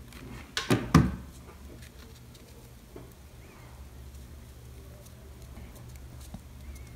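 A hot glue gun is put down on the tabletop with a couple of sharp knocks about a second in. Then comes faint handling of fabric ribbon over a low steady hum.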